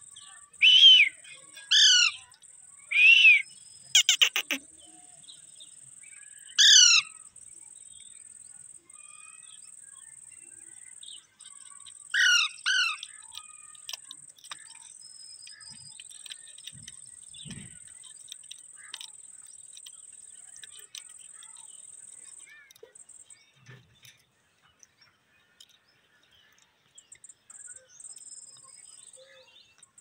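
Alexandrine parakeets calling: a string of loud, harsh single calls through the first seven seconds, then two more close together about twelve seconds in. A faint steady high buzz runs underneath and stops about two-thirds of the way through.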